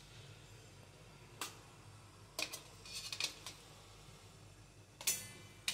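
A metal utensil clinking and scraping against a perforated stainless-steel steamer tray as steamed momos are lifted off it: a handful of short, separate clatters over a faint steady low hum.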